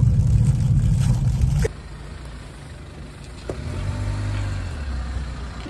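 Car interior noise, a steady low rumble of road and engine, that cuts off abruptly about a second and a half in, leaving a much quieter low hum.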